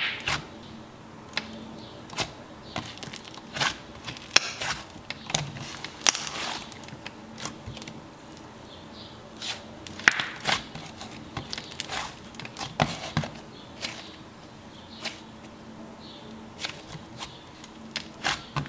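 Hand pressing and squishing a pink cloud cream slime, giving irregular sticky clicks and crackles as it is pushed down and released.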